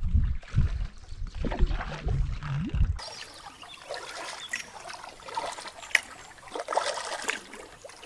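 Canoe paddling: paddle strokes splashing and water trickling off the blade. A low, uneven rumble fills the first three seconds and stops abruptly about three seconds in, leaving the quieter splashes and drips.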